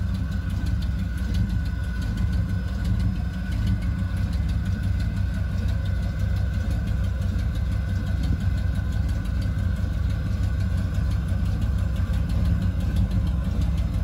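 Ford Bronco's engine running low and steady as the truck crawls slowly over slickrock, heard from inside the cab, with a faint steady whine above the rumble.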